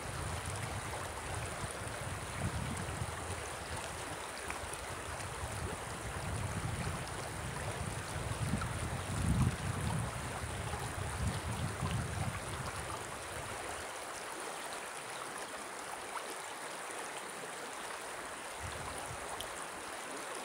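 Shallow river flowing over stones, a steady rushing of water. Gusts of wind rumble on the microphone for the first two-thirds and die away about fourteen seconds in.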